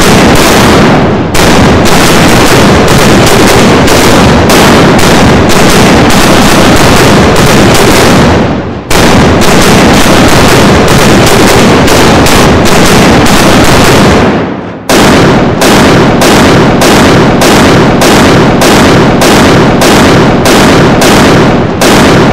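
Rolling broadside of cannon fire from HMS Victory's gun ports, set off as pyrotechnic charges: a rapid, unbroken run of loud bangs, several a second. Brief breaks come about nine and fifteen seconds in.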